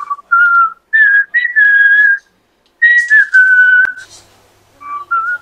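A person whistling a tune: a run of clear, held notes that step up and down in pitch, with short breaks between phrases.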